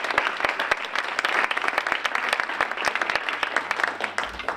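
A small audience applauding, many hands clapping together, dying away near the end.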